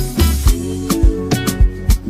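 Background music: an upbeat song with plucked guitar notes over a steady kick-drum beat, about two beats a second.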